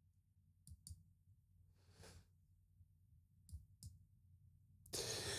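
Faint computer mouse clicks, two quick pairs about a second in and about three and a half seconds in, made while clicking through software menus. A soft hiss follows near the end.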